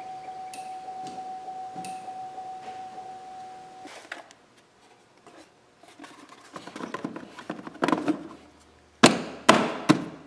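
Plastic cover of a Chevy Trailblazer's underhood fuse and relay box being handled and pressed down onto the box, ending in three or four sharp snaps as its latches click shut. A faint steady tone is heard in the first few seconds.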